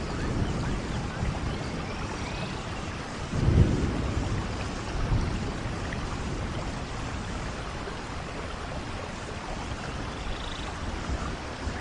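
Steady rain with low rumbles of thunder, the loudest swelling about three and a half seconds in and a smaller one about five seconds in.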